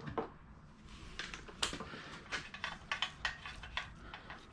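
Irregular light clicks and taps of main bearing caps and bolts being handled and set on an LS engine block during crankshaft installation.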